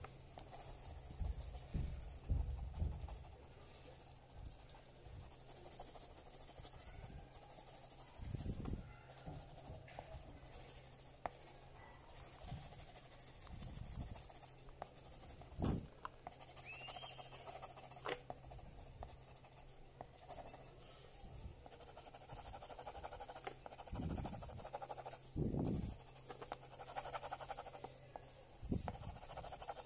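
Coloured pencil scratching across paper as an area is shaded in, with occasional low thumps of the hands or pencil against the table.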